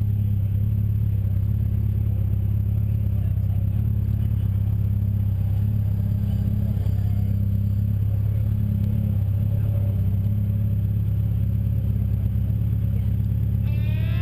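Motorcycle engine running steadily at low speed, heard from the rider's seat with little change in pitch. Guitar music comes in near the end.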